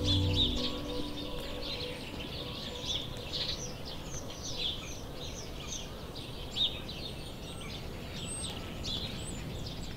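Many small birds chirping and calling in short, quick notes over a steady outdoor hiss; background music fades out about half a second in.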